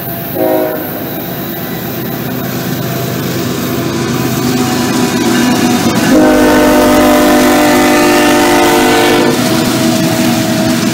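Horn of a CSX GE ES44AC locomotive leading a freight train, sounding a short blast about half a second in and then one long chord from about six to nine seconds. Under it, the diesel engine and wheels rumble louder as the locomotives pass close by.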